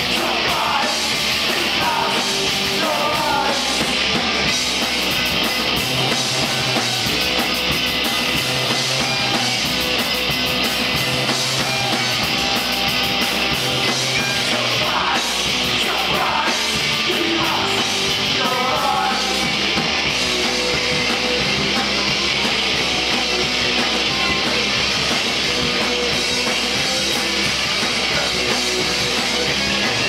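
Rock band playing live, with electric guitars, bass guitar and drums. Sung vocals come in near the start and again about halfway through.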